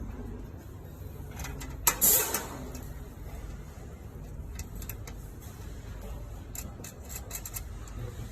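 A sharp click followed by a brief scrape about two seconds in, then scattered light clicks, from hand tools and wiring being handled in a water heater's wiring compartment.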